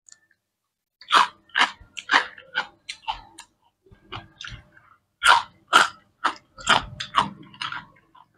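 Close-miked eating sounds: a string of sharp crunches and wet mouth smacks, about two a second, with a brief pause partway through.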